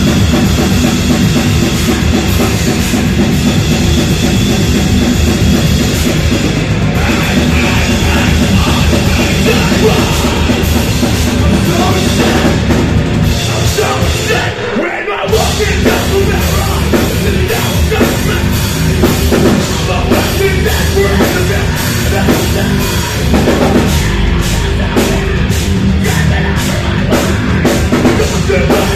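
Live metalcore band playing loud: distorted electric guitars and a drum kit driving hard. Shortly before halfway through, the band cuts out for a split second, then comes back in.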